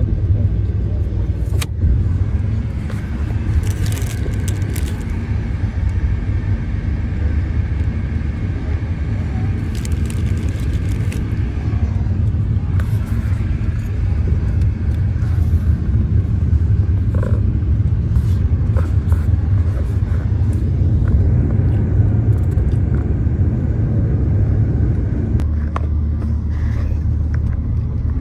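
Steady low rumble of road and engine noise inside a moving car's cabin, with a few brief clicks and rattles.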